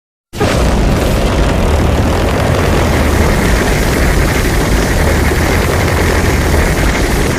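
Loud, steady rumbling noise with a deep low end, a layered monster sound effect made from film creature sounds. It starts a moment after a brief silence and cuts off abruptly near the end.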